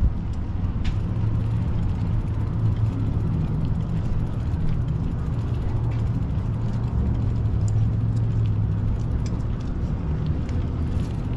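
Bicycle riding along: a steady low rumble with scattered clicks and ticks from the bike's mechanism.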